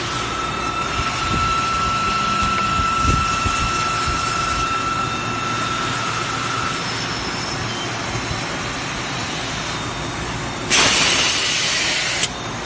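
CNC factory machinery running: a steady din with a thin high whine that stops about halfway through, then a loud hiss lasting about a second and a half near the end.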